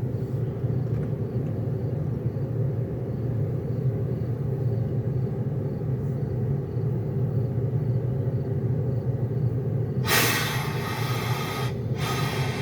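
ÖBB class 1144 electric locomotive's cooling blowers humming steadily with a low rumble, the fan noise behind its 'Alpenstaubsauger' (alpine vacuum cleaner) nickname. A loud hiss starts suddenly about ten seconds in.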